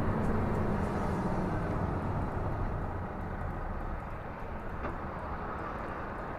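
Scania R440 truck's diesel engine and road noise heard inside the cab as a steady low rumble while the truck rolls slowly. A faint hum fades over the first two seconds, and there is one faint click about five seconds in.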